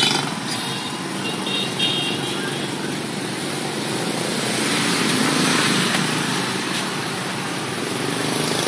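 Steady traffic noise with engines running, swelling slightly about five seconds in.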